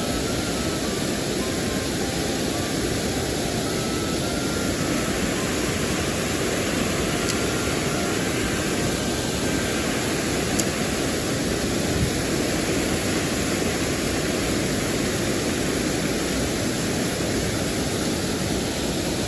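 Steady rush of a mountain stream's flowing water, an even noise that holds constant throughout.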